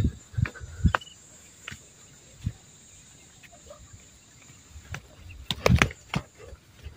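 Irregular footsteps on sandy, rocky ground, a handful of single steps and then a quicker run of them near the end, over a faint steady high-pitched insect drone.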